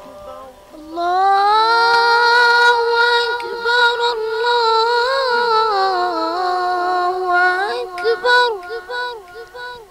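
A muezzin's solo voice calling the adhan, drawing out one long, ornamented note of the takbir from about a second in, then breaking into short wavering turns that die away near the end.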